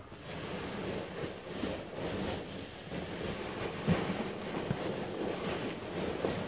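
Hands rummaging through packing material in a large cardboard box: a continuous rustle, with a couple of sharp knocks just past halfway.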